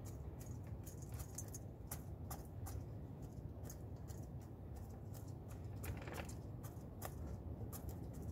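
Rooster pecking grain from a feed bowl: irregular small clicks and ticks, a few a second, as its beak strikes the grain and the bowl.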